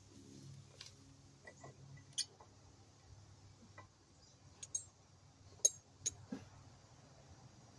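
A few scattered, sharp metallic clicks and clinks of hand tools and parts being handled, over a faint low hum.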